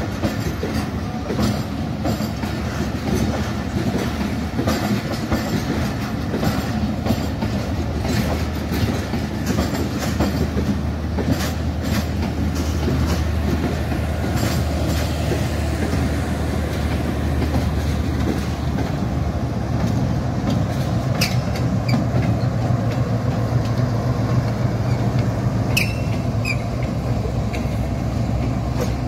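Passenger coaches of a Pakistan Railways express train rolling past, wheels clacking over rail joints over a continuous rumble, with a low steady hum through the middle and a brief high wheel squeal near the end.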